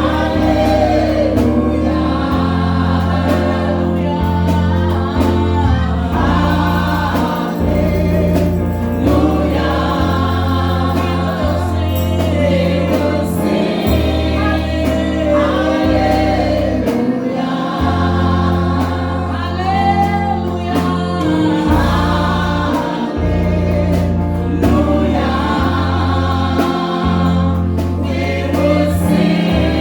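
A gospel choir singing with a band, a bass guitar or keyboard bass holding long notes underneath.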